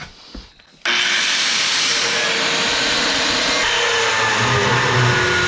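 A handheld power grinder starts about a second in, its whine rising as it spins up, then runs steadily and loudly.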